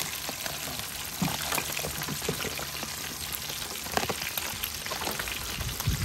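Small whole fish deep-frying in a pan of hot oil: a steady crackling sizzle with scattered pops.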